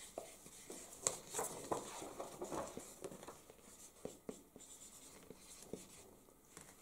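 Pen writing on paper: quick, faint scratching strokes through the first three and a half seconds, then a few scattered light taps and paper rustles.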